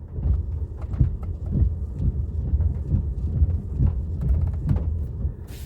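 2018 Ford F-150 windshield wipers sweeping back and forth across the wet windshield in regular strokes, over the low rumble of the truck running; the wipers are working again on a new multifunction switch. A sharp click near the end.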